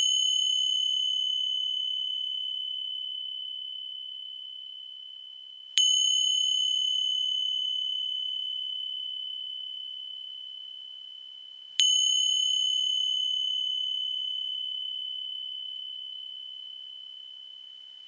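Small high-pitched bell struck three times, about six seconds apart. Each stroke rings one clear tone that fades slowly into the next, with a brighter shimmer that dies away quickly. It is the bell that opens a guided mindfulness practice.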